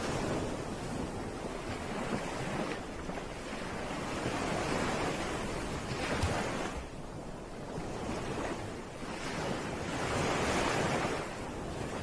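Ocean surf breaking and washing up a sandy beach, the rush of water swelling and easing several times.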